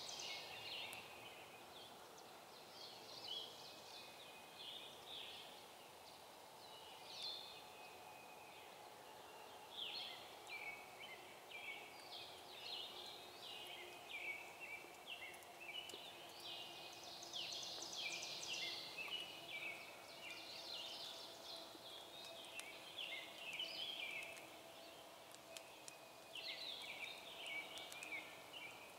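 Songbirds chirping and trilling in spring woods, faint, many short calls overlapping and coming and going. A faint steady hum sits underneath.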